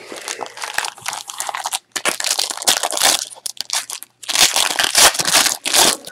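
Foil trading-card pack wrappers crinkling and tearing as packs are handled and ripped open, in loud crackly bursts broken by two short pauses.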